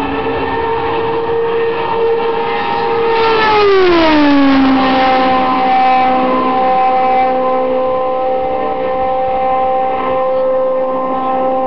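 A 2007 IndyCar's 3.5-litre Honda V8 passing at racing speed, about 220 mph. Its high engine note swells and drops sharply in pitch as the car goes by, about four seconds in, then holds a lower, steady note as it runs away down the straight.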